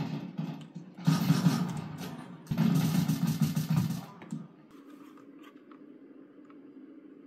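Video game gunfire played over speakers: sprays of rapid shots about a second long, the last ending about four seconds in. After that only a low steady hum with a few faint clicks.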